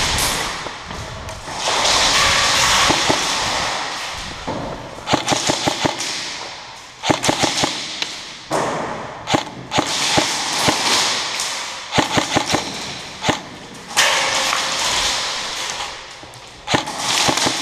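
Airsoft gunfire: strings of rapid sharp cracks in several bursts, plus single cracks, between stretches of hissing rustle from movement close to the microphone.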